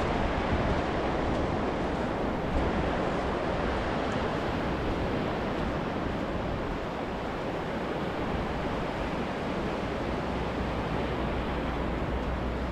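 Small waves breaking and washing up a sandy beach in a steady wash of surf, with wind noise on the microphone.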